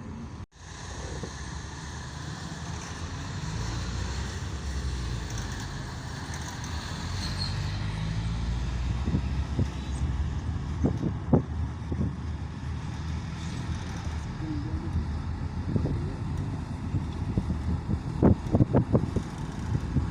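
Road vehicle noise: a steady low rumble of engine and tyres, with a run of short thumps near the end.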